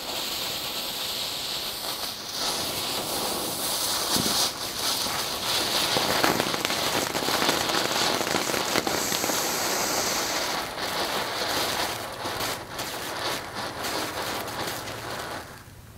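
Boomer Tea Pot ground fountain firework burning: a steady hiss of spraying sparks, with sharp crackles over the second half, stopping shortly before the end as it burns out.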